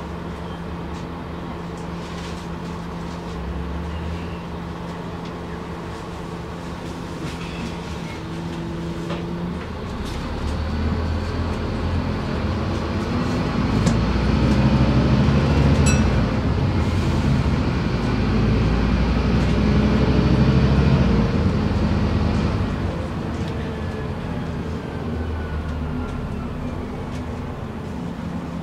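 Scania N230UD five-cylinder diesel engine of an Alexander Dennis Enviro 400 bus, heard from inside the cabin. It idles steadily, then about ten seconds in the bus pulls away and the engine grows louder under acceleration, easing off again in the last third.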